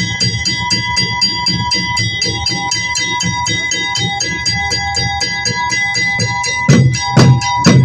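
Festival drums beaten with rapid, evenly struck metal cymbals or bells, several strokes a second over a steady ringing. About seven seconds in, heavier, louder drum strokes come in.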